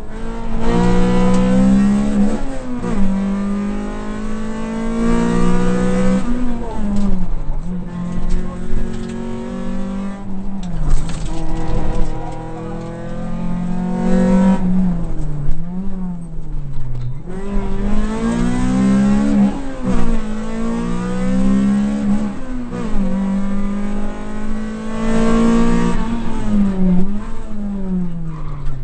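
Honda rally car's engine heard from inside the cabin, driven hard at full stage pace: the engine note climbs steeply, then drops back over and over as the driver changes gear and lifts for corners.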